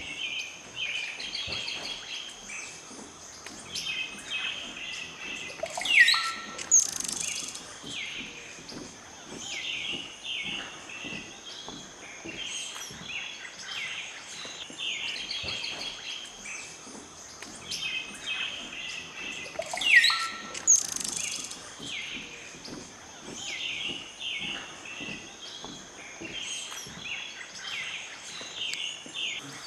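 A chorus of wild birds calling and chirping, many short calls overlapping, over a steady high-pitched whine. A louder sweeping call stands out about six seconds in and again about twenty seconds in.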